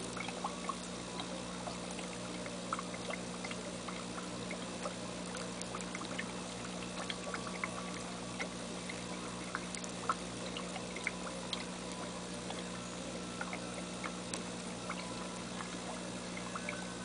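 Fish-tank water bubbling and trickling, with scattered small pops and a steady low hum from the tank's pump.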